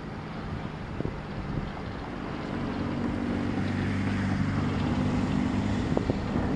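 SM42 diesel-electric locomotive's engine running steadily as the heavy out-of-gauge freight train rolls past, its low drone growing louder from about two seconds in, with a few sharp clacks.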